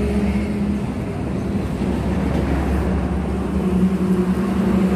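Steady low rumble of a motor vehicle engine and road traffic running close by, growing a little louder near the end.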